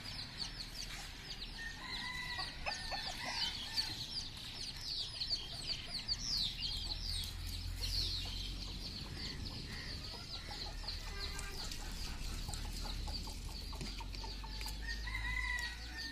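Chickens calling: a steady stream of high, quick, falling peeps, with a couple of longer, lower calls about two seconds in and again near the end.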